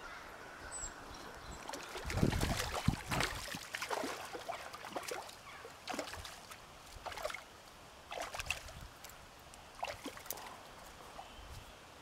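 Handling sounds at a creek bank: rustling and scraping among dry roots and a rope fish stringer, with scattered light knocks and a few heavier thumps about two to three seconds in, over faint sloshing water.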